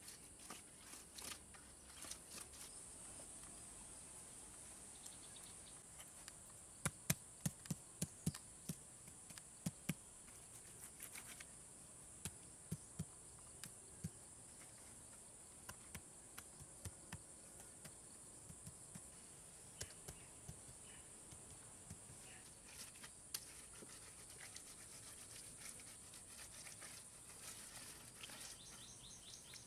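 A steady high insect drone runs throughout, under sharp taps and scrapes of a trowel and bricks being worked into wet cement mortar. A quick run of louder taps comes about seven to ten seconds in, with scattered single taps after.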